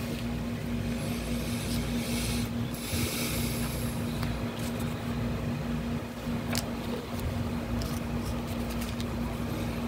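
A steady machine hum holding one even tone over a background hiss, with a few faint clicks.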